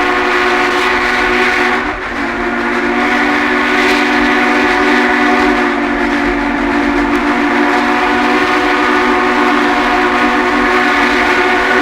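A train whistle sounding a long, steady multi-note chord, dipping briefly about two seconds in and then held again.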